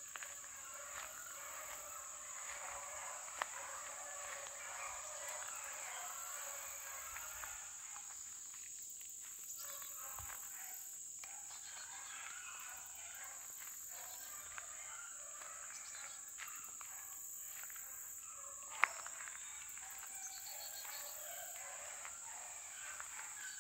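Insects singing in a steady high drone, with footsteps crunching on a gravel lane and a sharp click about three-quarters of the way through.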